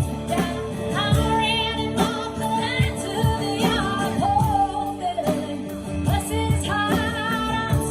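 A woman singing a country song with vibrato over instrumental backing with a steady beat.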